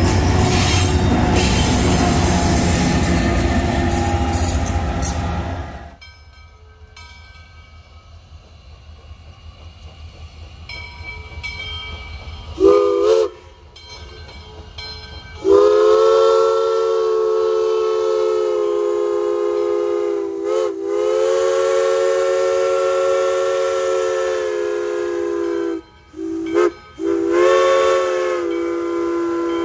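A Tri-Rail commuter train rolls past with a loud, steady rumble that cuts off about six seconds in. Then U.S. Sugar No. 148 steam locomotive's whistle, a chord of several tones, gives a short toot followed by long, long, short, long blasts, the grade-crossing signal.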